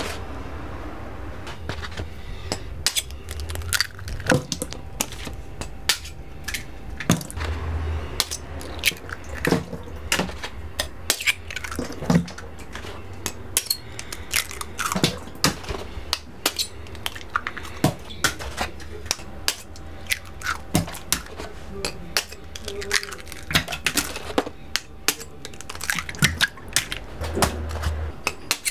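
Kitchen egg handling: a small metal knife taps against eggshells and cardboard egg trays, giving sharp, irregular clicks several times a second over a low steady hum.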